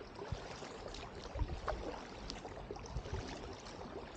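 Kayak paddle strokes in river water: soft splashes and drips from the paddle blades, with a few low bumps now and then.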